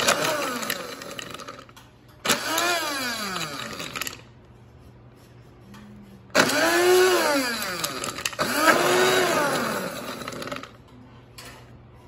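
Small electric blender grinding pistachios in four short pulses, two quick ones then two more a couple of seconds later. Each pulse is a motor whine that climbs as it spins up and drops as it winds down.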